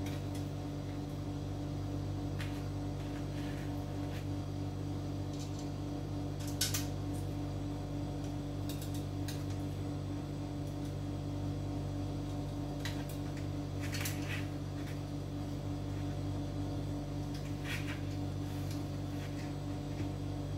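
Light clicks and taps of small plastic parts being handled: a Raspberry Pi 4 case lid and its cooling fan being fitted together. Underneath is a steady low hum.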